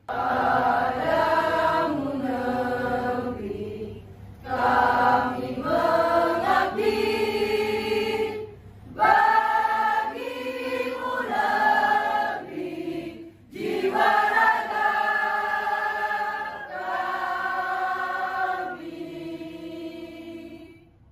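A group of women singing together in unison, a slow song in long held phrases with short breaths between them. The singing stops abruptly at the end.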